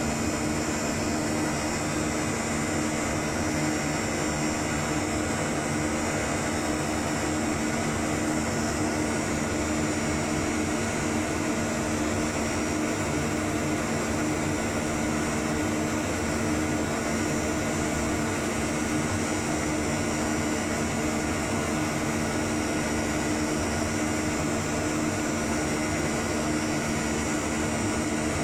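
Steady whir of equipment cooling fans with a constant low hum, unchanging in pitch and level throughout.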